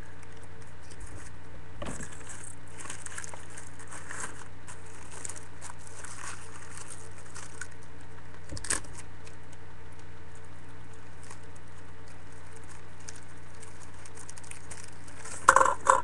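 Faint rustling and crinkling of a paper coffee filter and tape being handled, with a single sharp click about halfway through. Near the end comes a quick cluster of knocks as a plastic cup is set down on the table, all over a steady low electrical hum.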